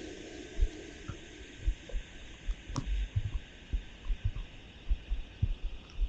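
Heavy rain, with raindrops striking the camera and its housing as irregular, muffled low thuds, about two a second, over a steady hiss of rain.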